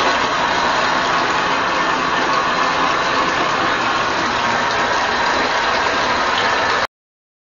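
Whirlpool bathtub jets running: a steady, loud whir of the pump with water churning, stopping suddenly near the end.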